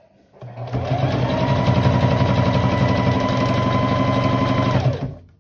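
Electric household sewing machine stitching through cloth: the motor whines up to speed about half a second in, runs at a fast, even stitching rate for about four seconds, then winds down and stops near the end.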